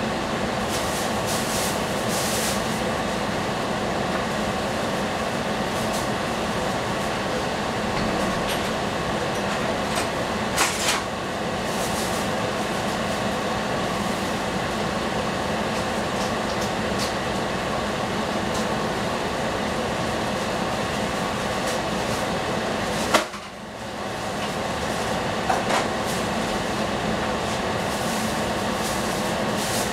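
Steady rushing noise of a covered saucepan cooking over a gas burner, with a few light clicks and knocks.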